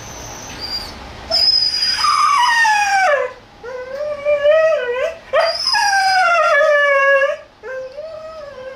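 A dog whining in long, howling cries, about four in a row, each sliding down in pitch, as her owner says goodbye and leaves her behind a gate.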